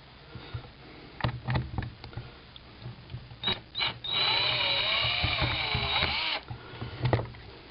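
Power screwdriver backing a screw out of a rifle's polymer shell: a few handling clicks, two short taps of the trigger, then the motor runs for about two seconds, its pitch wavering under load.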